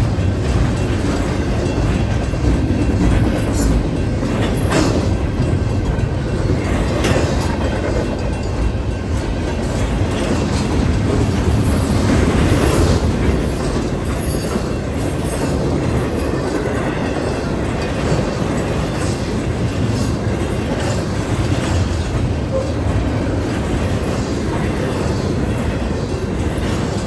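Intermodal freight train rolling past, a steady loud rumble of wheels on the rails with a few sharp clacks over the joints.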